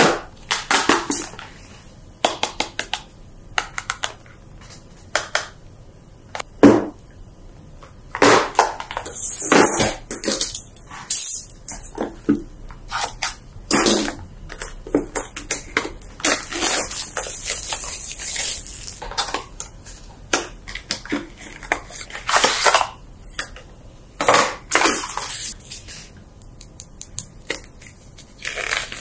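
Cardboard box and paper packaging being handled and opened: irregular rustling, scraping and crinkling of card, plastic and paper, with short sliding scrapes of a box sleeve.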